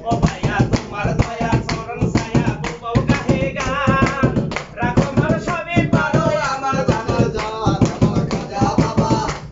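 A man singing a Bengali baul folk song over a quick, steady beat of group hand-clapping and hand-drumming on plastic containers.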